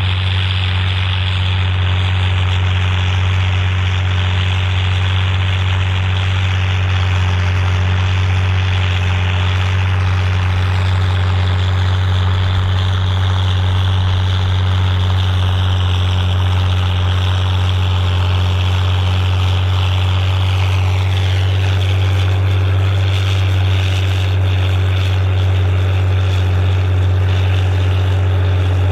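Volvo BM 810 Turbo tractor's turbo diesel engine running steadily under load while pulling a six-furrow plough, a deep, even drone with a hiss above it that shifts slightly about two-thirds of the way through.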